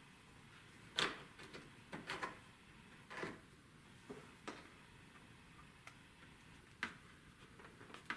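Light metallic clicks and clacks, about half a dozen spread unevenly, as battery charger clamps are handled and clipped onto the car battery's terminals.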